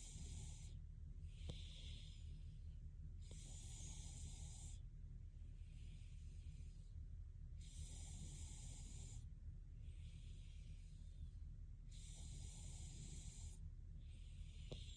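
A sleeping woman breathing slowly and evenly, each inhale and exhale a soft hiss, about one full breath every four seconds.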